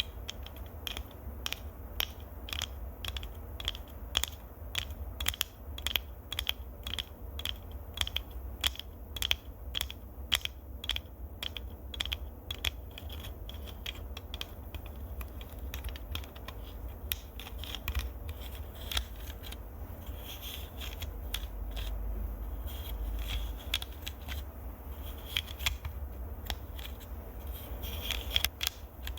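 Crisp clicks made close to the microphone as an ASMR trigger, in a quick even run of about three a second, then sparser and irregular for the second half.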